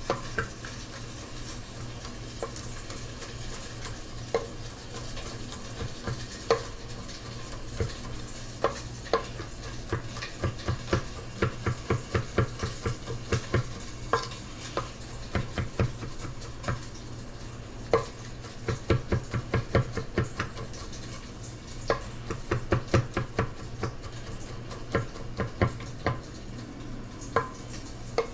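Chef's knife mincing garlic on a wooden cutting board: irregular runs of quick knocks as the blade rocks and chops against the wood. A steady low hum runs underneath.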